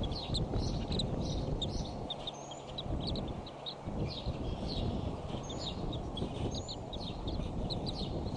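Birds chirping: many quick high chirps with a few short rising whistles, over a steady low rushing background from the outdoor nest-cam microphone.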